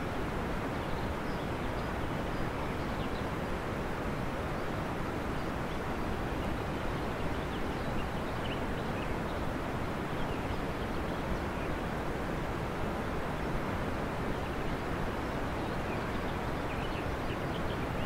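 Steady rushing ambient noise, even throughout, with faint short high chirps, like distant birds, scattered through it.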